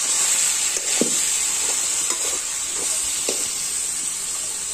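Chicken pieces sizzling in hot mustard oil in a metal kadhai, a steady frying hiss. A slotted metal spatula scrapes and clinks against the pan a few times, most sharply about a second in and again a little past three seconds.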